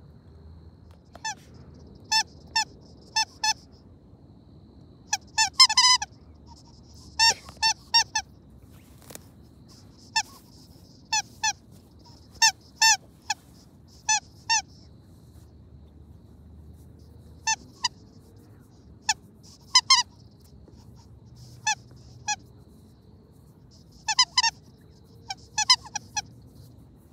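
Squeaky dog toy being chewed by a dog. It squeaks in quick runs of two to four short, high squeaks, with pauses of a second or more between runs.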